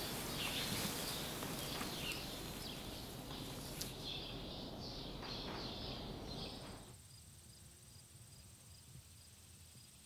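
Outdoor ambience: a steady rustling background with scattered high chirps, then, after a cut about seven seconds in, a quieter summer field where insects keep up a thin, steady high buzz and a faint chirp about twice a second.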